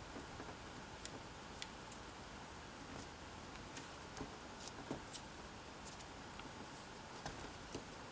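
Origami paper being folded and creased by hand: faint paper rustles and small, irregular clicks as flaps are tucked and pressed down, over a low steady hiss.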